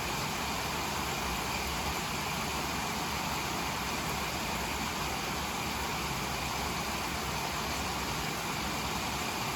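Steady rain falling on leaves: an even, unbroken hiss.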